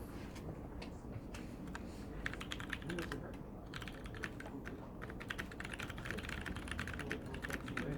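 Mechanical keyboard with lubed Cherry MX Clear switches on 62 g springs being typed on. A few scattered keystrokes come first, then fast, steady typing from about two seconds in, with a brief pause near the middle.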